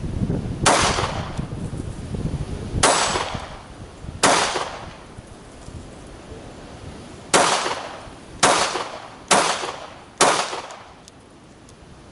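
Polish P-64 pistol firing 9x18mm Makarov rounds, seven shots: three spaced a second or two apart, a pause of about three seconds, then four about a second apart. Wind rumbles on the microphone during the first few seconds.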